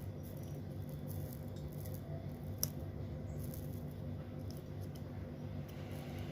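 Steady low hum under faint scattered clicks of small tools working on a phone's circuit board during soldering, with one sharp click about two and a half seconds in.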